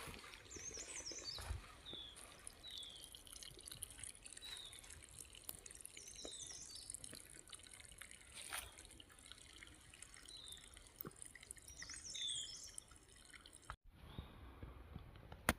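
Water trickling and dripping from a pipeline, with a small bird repeating short falling chirps every second or so over it. The sound cuts off abruptly near the end.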